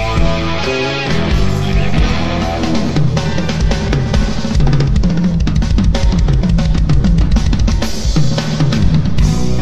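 Live instrumental rock band playing, with the drum kit to the fore. A busy, fast run of snare and bass drum hits fills most of the middle, over a bass guitar line, with guitar notes at the start.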